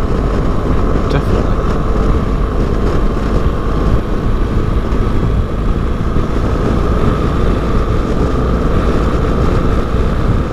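BMW GS adventure motorcycle cruising at a steady speed, heard from the rider's seat: a constant rush of engine, wind and road noise with no gear changes or revving.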